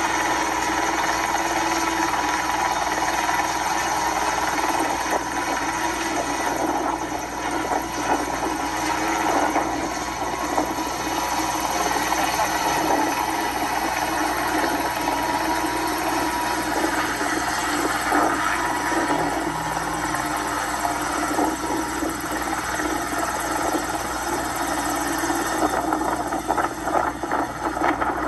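Small two-seat helicopter's engine and rotor running steadily in a low hover. It is overpitched at the limit of its power and settling toward the water, with an RPM sag that is said to be audible as a sign of power required exceeding power available.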